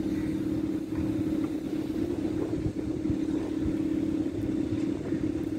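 A steady machine hum, one held tone, over a low rumble.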